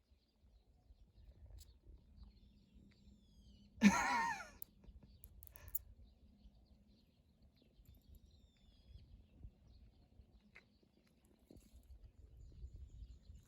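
A single short animal call, rising and then falling in pitch, about four seconds in, over faint outdoor ambience with scattered small bird chirps.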